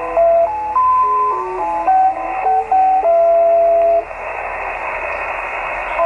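Radio Australia's shortwave signal received on an Elecraft KX2 in lower sideband, narrow and cut off in the treble: a short melody of clear single notes, which stops about four seconds in and leaves shortwave static hiss.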